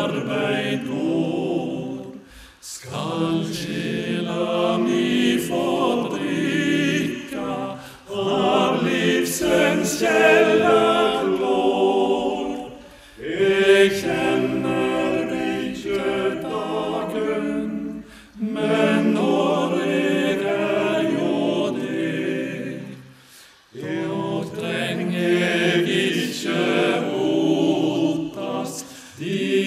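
A men's vocal group singing a hymn a cappella in close harmony. The singing comes in phrases of about five seconds, each followed by a short pause for breath.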